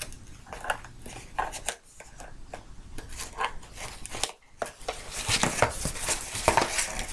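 A cardboard toy box and its packaging being handled and pulled open by hand: irregular scrapes, rustles and clicks, busier and louder in the second half.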